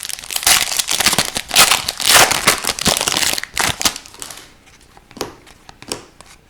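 Foil wrapper of a hockey card pack crinkling and tearing as it is opened, dying down after about four seconds to a few light clicks.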